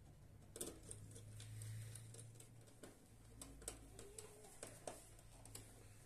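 Faint, scattered small clicks and taps of a screwdriver and wire ends being worked into DIN-rail terminal blocks, over a low steady hum.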